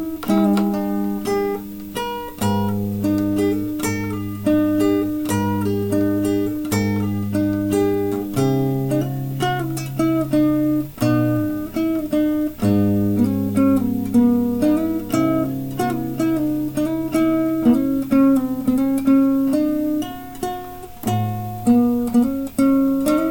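Acoustic guitar playing an instrumental passage: plucked notes and chords over low bass notes that change every second or two.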